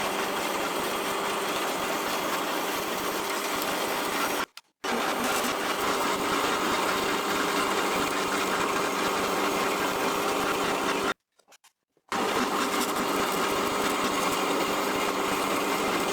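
Bandsaw running steadily as it saws through cold rolled steel bar stock, with a steady hum and whine over the cutting noise. It breaks off to silence twice, briefly about four seconds in and for about a second near the eleven-second mark.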